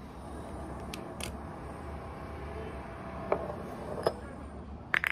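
Small clicks and taps from handling a lit tealight candle in its thin metal cup, a few scattered and the sharpest near the end, over a steady low hum.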